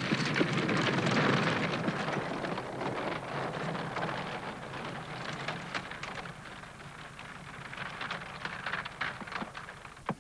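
Horse-drawn wooden cart crunching and rattling along a frozen, snowy road with the horse's hooves, loudest about a second in and fading as it moves away. A single knock on a wooden door comes right at the end.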